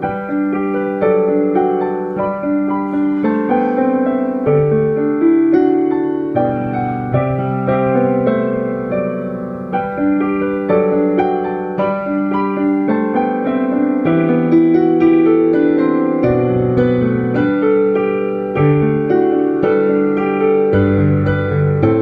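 Solo digital piano playing a hymn arrangement: a continuous flow of melody and chords over changing bass notes.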